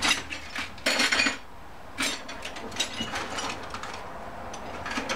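Metal hand tools clinking and clattering in a steel toolbox drawer as a hand rummages through them, in several short bursts. The loudest come at the start and about a second in.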